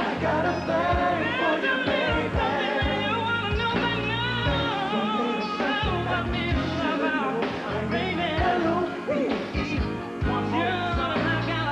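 Live R&B band playing: sung lead and backing vocals over electric bass and drums, with a steady kick-drum beat.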